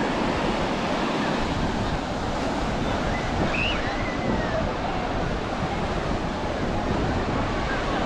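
Ocean surf washing onto a beach, a steady rushing noise, with some wind on the microphone.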